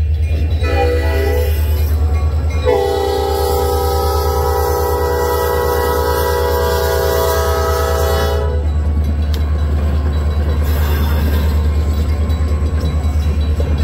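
Diesel locomotive air horn sounding a short blast, then a long blast of about six seconds, a chord of several tones, for the grade crossing. Underneath runs the steady heavy rumble of the EMD GP40-2 and GP40-3 diesel locomotives' engines, which carries on alone with rail noise once the horn stops, about two-thirds of the way in.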